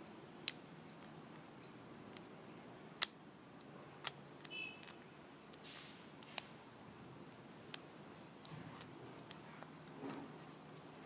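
Lock pick and tension wrench working the pins of a brass five-pin padlock: scattered sharp metallic clicks at irregular intervals, some a second or more apart.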